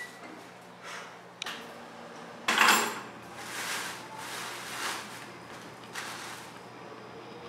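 A clatter as a plastic shopping bag and keys are set down on a hard kitchen countertop, then the thin plastic bag rustling in waves as hands open it and take vegetables out.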